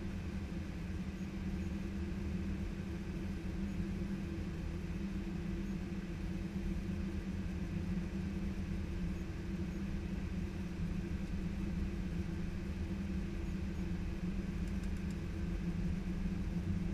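Steady cockpit noise of an Airbus A319-115 taxiing: a constant hum with a low rumble from the idling CFM56 engines, cabin fans and the rolling gear.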